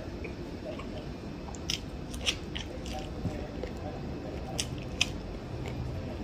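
A person chewing and biting boiled corn on the cob, with a handful of short sharp mouth clicks and crunches, a cluster about two seconds in and another near five seconds.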